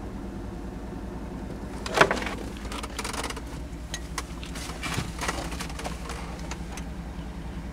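Cadillac Escalade's 6.2 L L92 Vortec V8 idling steadily with a low hum. About two seconds in there is a sharp, loud knock, followed by scattered clicks and rustling.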